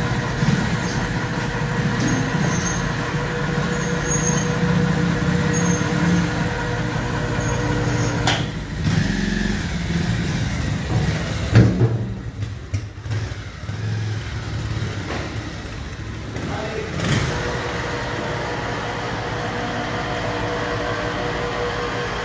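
Motorcycle engine running, then pulling away as the bike rides off a metal lift platform, with one sharp knock partway through.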